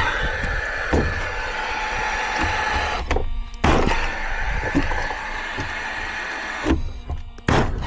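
A small electric motor whines steadily, with occasional knocks of timber being handled. The sound breaks off twice and starts again abruptly.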